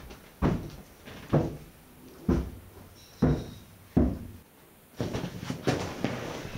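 Heavy, slow footsteps coming down stairs: five thuds about a second apart, then shuffling and rustling in the last second and a half.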